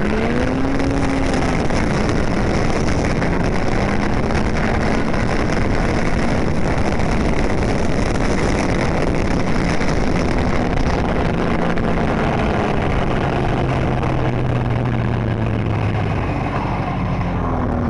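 Snowmobile engine running under way, heard from the rider's seat over a steady rush of wind and track noise. The engine note wavers and dips lower for the last few seconds.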